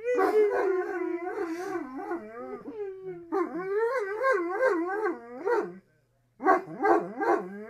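Black dog whining and howling while being teased: long drawn-out cries that waver up and down in pitch, breaking off about six seconds in, then a few shorter cries near the end.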